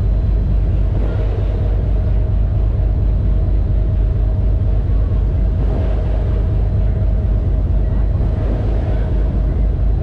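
Passenger ferry under way, heard from its open stern deck: a loud, steady low rumble of engine and churning wake, with a steady hum running through it.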